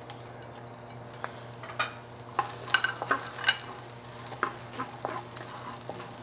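Wooden spatula stirring and clacking against a wok as garlic, ginger, dried chili peppers and Sichuan peppercorns fry in hot oil with a low sizzle. The clacks start about a second in and come irregularly, several a second, over a steady low hum.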